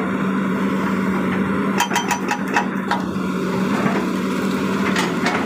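A small motor running steadily with a constant low hum, with a few light clicks about two seconds in and again near the end.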